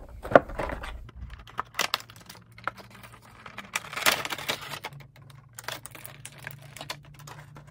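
Packaging of a boxed vinyl figure being handled and opened by hand: irregular light clicks and taps, with a short crinkling rustle about four seconds in.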